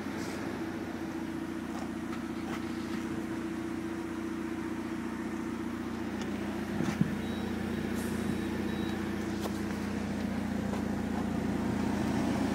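Second-generation Mitsubishi Eclipse's engine idling steadily, heard at the rear of the car by the exhaust, a little louder near the end. A brief click about seven seconds in.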